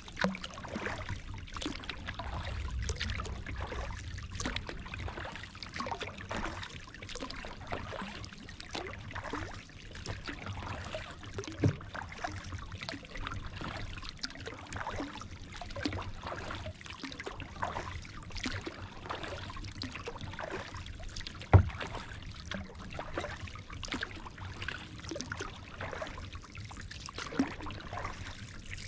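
Kayak paddling: water trickling and dripping off the paddle blades and lapping at the hull, with two sharp knocks, the louder about two-thirds of the way through.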